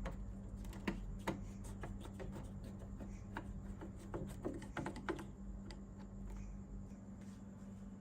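Irregular light clicks and taps of small parts being handled during work on a vintage radio, about a dozen in the first five seconds and fewer after, over a steady low hum.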